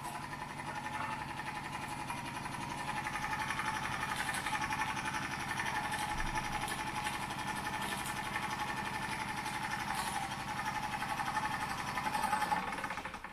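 Wilesco D20 toy steam engine's single oscillating cylinder running at speed, a fast, even chuffing of exhaust steam with the rattle of the flywheel and mechanism. It dies away near the end.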